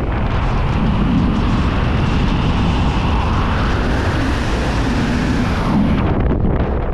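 Loud, steady wind rushing over the microphone of a speedflyer's camera during a fast dive, the airstream buffeting it; the high hiss dips briefly near the end.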